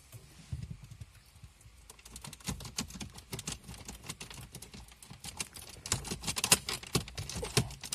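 Irregular plastic clicks and knocks from a dashboard air vent in a Mercedes B-Class W246 being worked loose by hand and pulled out of its housing. The clicks come thickest near the end.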